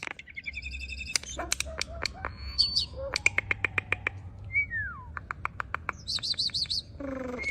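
Bird calls: a varied run of sharp chirps and quick clicking notes, a single downward-sliding whistle about halfway through, and a fast, high trill about six seconds in.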